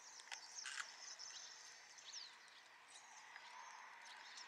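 Faint outdoor ambience with birds chirping: short high calls and a few quick downward-sweeping chirps over a steady hiss, with a couple of short clicks in the first second.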